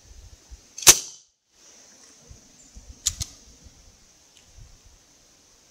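PCP air rifle (GunPower Stealth with a 24-inch barrel and suppressor) firing one shot about a second in, a single sharp crack. A second, quieter click comes about two seconds later.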